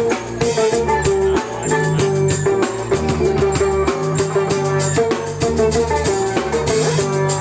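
Live instrumental electronic-rock music from a violin, drum kit and keyboard trio: sustained melody notes over a bass line and a steady drum beat.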